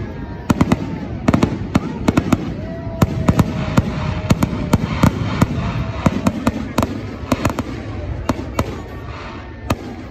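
Aerial fireworks bursting overhead: many sharp bangs and crackles in quick, irregular succession over a continuous rumble.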